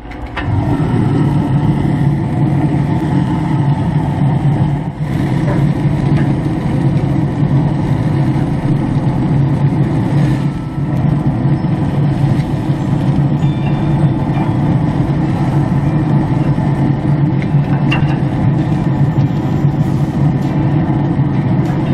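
Running Traeger pellet grill: a steady low mechanical drone, like its fan, with a few light clicks of metal tongs on the grate.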